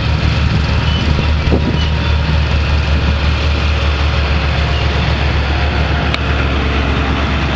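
A tractor engine running steadily at a constant speed, an even low drone with no revving.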